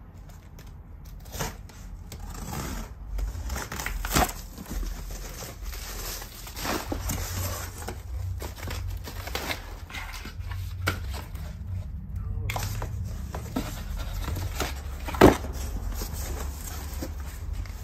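A cardboard shipping box being cut open and unpacked: a box cutter slitting the packing tape, then cardboard flaps and a cardboard insert scraping and rustling and bubble-wrap packing crinkling. Scattered small clicks and two sharp knocks, the louder one near the end.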